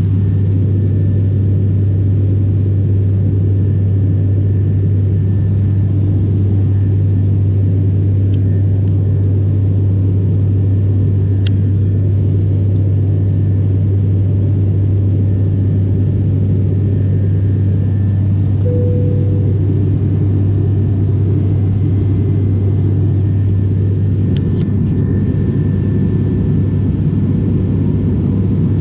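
Steady low drone of an airliner cabin in flight: engine and air noise with a deep hum, unchanging throughout.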